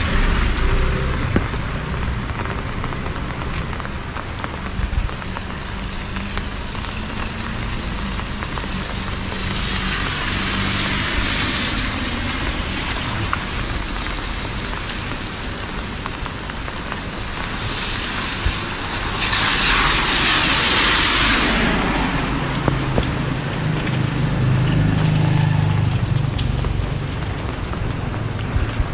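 Steady rain falling on a street, with vehicle engines running low underneath. The hissing swells twice, about ten and about twenty seconds in.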